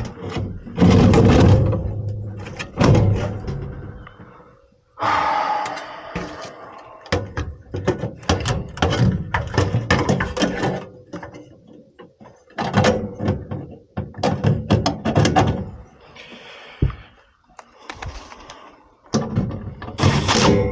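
Repeated knocks and thuds in clusters, over a faint steady hum.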